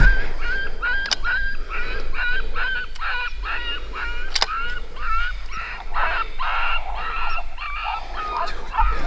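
Coyote yelping: a steady run of short, high yelps, about two a second. Two sharp clicks cut in, about a second in and again past four seconds.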